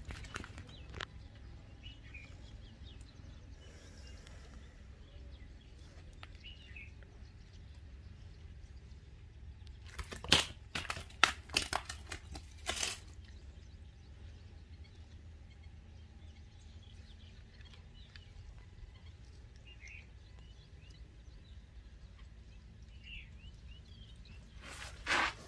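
Outdoor background with a steady low rumble and occasional faint bird chirps, broken by a cluster of sharp crunching, crinkling handling noises about ten to thirteen seconds in and another short burst just before the end.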